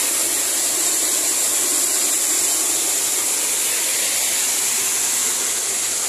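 Loud, steady rush of the Düden waterfall's falling water, heard from right beneath the falls.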